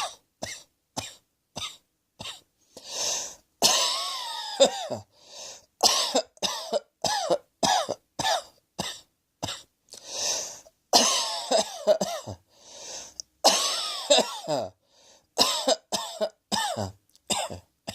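A person coughing over and over in quick runs of short, sharp, voiced coughs, with a few drawn-in breaths between the runs.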